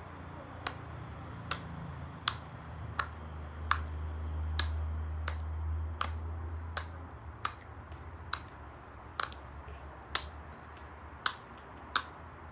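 Silicone pop-it fidget toy having its bubbles pressed one at a time, each giving a sharp pop, a little more than one a second.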